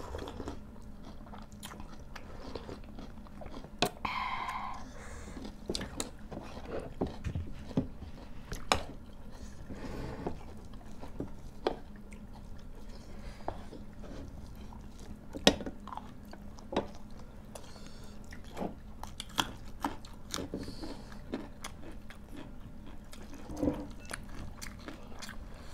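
Close-up mouth sounds of people eating chicken by hand: chewing and biting, with scattered sharp clicks and crunches throughout.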